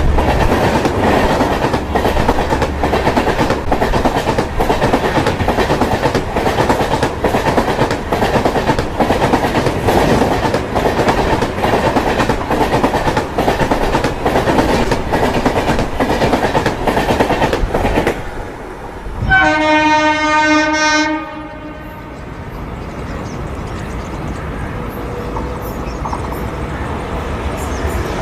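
Passenger train of LHB coaches running past, its wheels clattering in an even rhythm over the rail joints. The clatter stops abruptly about eighteen seconds in. A train horn then blows once for about two seconds, followed by a quieter rumble.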